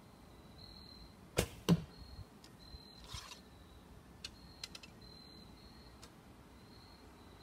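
A shot from a Bearpaw Bodnik Crow recurve bow: a sharp snap of the string about a second and a half in, then, a third of a second later, a louder thud of the arrow striking the target. After it come a short rustle and a few light clicks of the next arrow being taken from the quiver and nocked.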